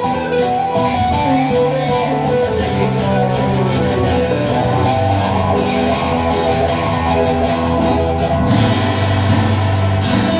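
Live band playing an instrumental passage of a song in an acoustic set: plucked and strummed guitars over a steady ticking beat that drops out briefly near the end.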